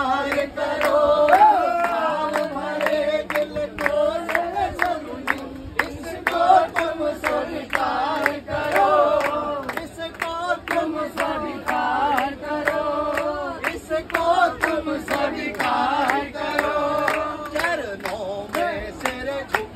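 A group of men singing a Hindi devotional bhajan together, with rhythmic hand clapping keeping the beat.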